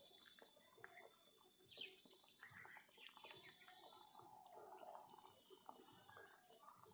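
Faint, irregular bubbling and popping of a thick chicken curry simmering in an open pan, with a faint steady high whine underneath.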